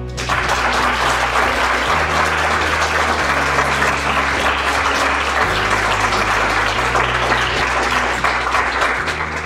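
Audience applauding: a roomful of hands clapping, starting suddenly and fading out near the end, with background music playing underneath.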